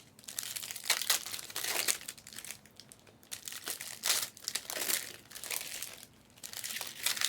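Plastic trading-card wrappers and packaging crinkling and rustling in irregular bursts as Panini Select Hybrid basketball packs are handled and opened.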